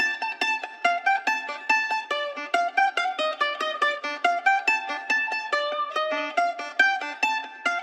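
Instrumental music led by a mandolin-like plucked string instrument picking a quick melody, several notes a second.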